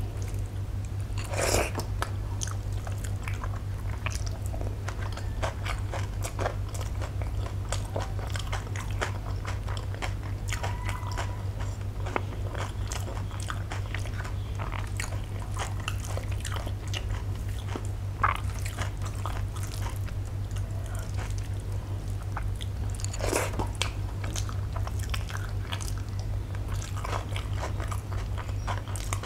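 Close-up eating sounds: fingers mixing and squishing milk-soaked rice on a steel plate, with chewing and small wet mouth clicks throughout, a few louder ones standing out. A steady low hum runs underneath.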